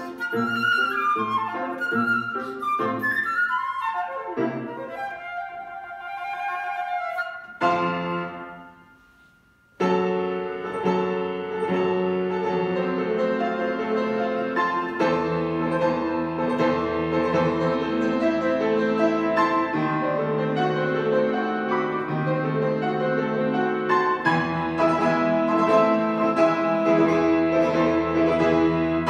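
Concert flute and grand piano playing a classical piece. The flute plays fast runs over the piano until a sudden chord about seven seconds in, which dies away into a brief pause. The piano then plays a solo passage alone.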